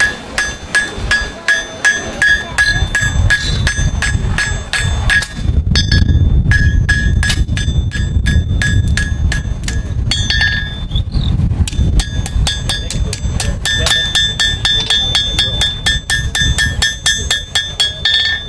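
Blacksmith's hammer striking on an anvil in a steady run of about three blows a second, each blow leaving the anvil ringing, with short pauses about five and eleven seconds in. A low rumble runs underneath.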